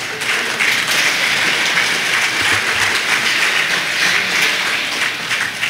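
Audience applauding, a dense, steady clapping.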